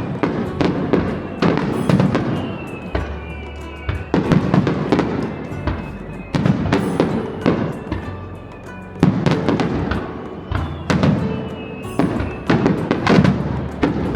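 Fireworks bursting in rapid succession, many sharp bangs and crackles, over music playing throughout.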